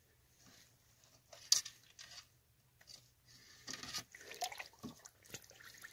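Water sloshing and dripping in a pot of hot scalding water as a slaughtered rooster is pushed under and moved about by hand to loosen its feathers for plucking. The splashes are irregular, with the sharpest about a second and a half in and a busier run of sloshing in the second half.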